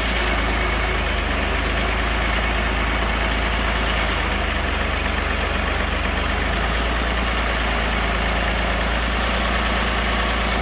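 Gafner mini skidder's engine idling steadily.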